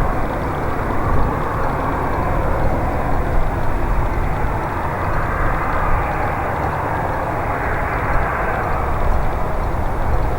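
Jet noise from a CRJ-200 regional jet's two rear-mounted GE CF34 turbofans: a steady, loud rushing noise over a deep rumble, swelling gently around the middle.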